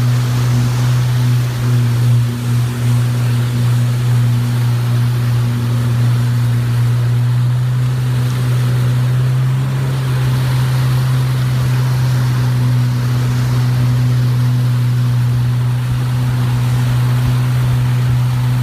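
Speedboat engine running steadily at high speed, a deep unbroken drone, under the rush of wind on the phone's microphone and water rushing past the hull.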